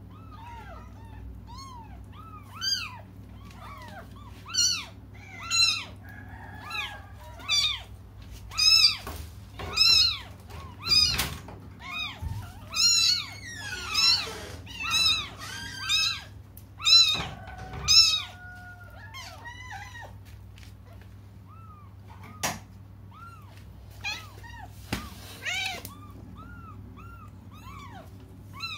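Newborn kittens crying for their mother: a run of short, high-pitched mews, about one a second and thickest in the middle, thinning out near the end. A faint steady low hum runs underneath.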